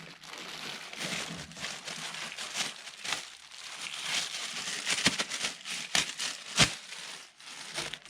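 Plastic packaging crinkling and rustling as a new electric winch is unwrapped from its box, with a few sharp clicks and knocks.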